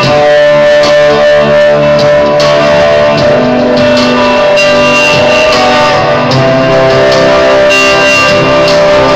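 Guitar-driven rock music played loud through a new pair of Wet Sounds REV 410 wakeboard-tower speakers, powered by Syn-4 amps and still being broken in. The music echoes off the block walls of a warehouse.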